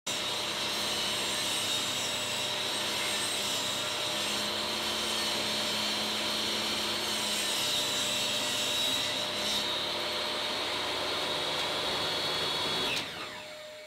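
Table saw running and cutting a thin board, a steady motor whine with cutting noise; about thirteen seconds in it is switched off and its pitch falls as the blade spins down.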